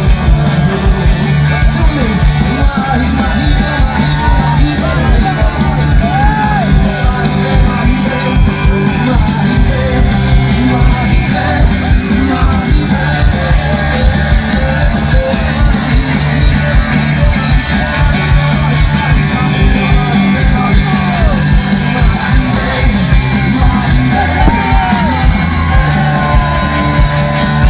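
Live rock band playing loudly with a lead vocal over it, heard from within the audience.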